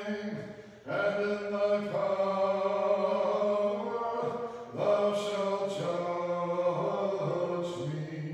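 Unaccompanied Orthodox liturgical chant at Vespers, sung on long held notes in phrases, with a short break for breath about half a second in and another about halfway through.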